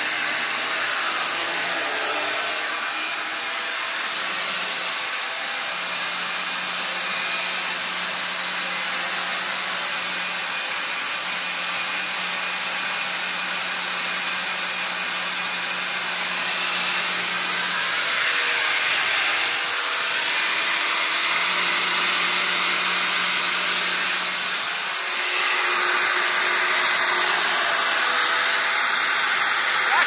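Vacuum cleaner running steadily: a continuous motor whine with rushing air, getting a little louder about two-thirds of the way in.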